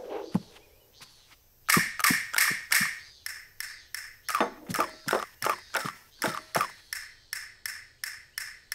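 A rhythmic run of short, sharp clicks, about three a second, starting a little under two seconds in, after a single knock right at the start.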